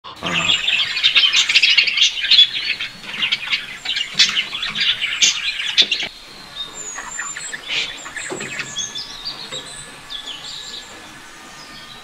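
A group of budgerigars chattering with rapid, dense chirps and warbles, which drop suddenly about halfway through to quieter, sparser chirps and short whistled glides.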